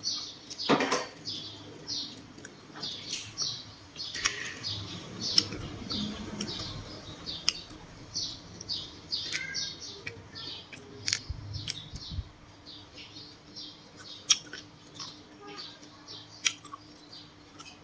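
Close-up eating sounds of grilled water snake: a run of short chewing sounds, about two or three a second, with sharp clicks of small bones being picked apart by hand.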